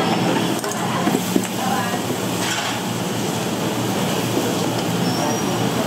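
Busy breakfast-shop ambience: indistinct chatter over a steady low mechanical drone, with a single sharp clatter about a second and a half in.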